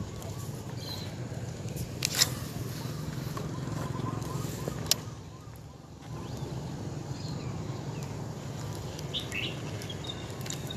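Open-air ambience with a steady low rumble, two sharp clicks about two and five seconds in, and a brief bird chirp near the end.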